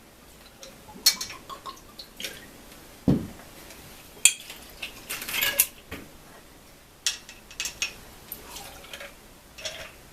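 Bottles and glasses clinking and knocking on a bar top as liqueur shots are measured and poured, with short splashes of liquid. A duller knock about three seconds in.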